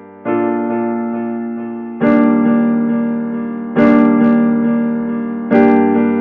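Intro music: keyboard chords struck about every second and three-quarters, each ringing on and fading before the next.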